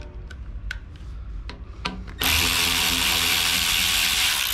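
Milwaukee cordless electric ratchet starting about two seconds in and running steadily with a motor whine, spinning a bolt out on the engine. Before it, a few light clicks of tools being handled.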